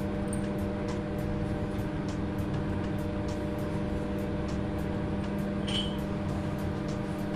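900-watt microwave oven running, a steady electrical hum with a low rumble, heating pasta in water.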